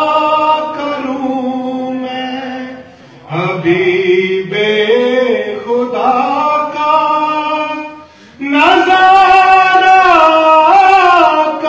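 A man singing a devotional Urdu naat solo in long held notes that bend and step in pitch. He breaks off briefly about three seconds in and again about eight seconds in.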